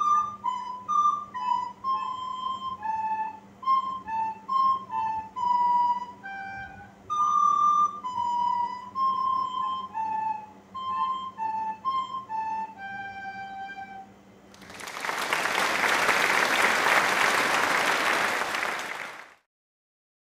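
Two soprano recorders playing a simple tune in unison, short held notes that stop about fourteen seconds in. Then about four and a half seconds of applause, which cuts off into silence.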